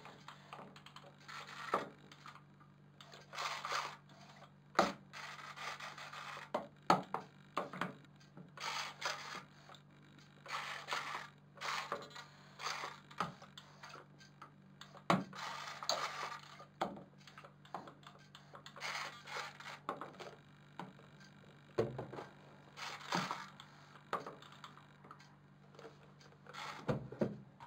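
Small model tugboat in a water-filled washbasin, its propeller churning the water in irregular short bursts, with sharp clicks and knocks, over a steady low hum.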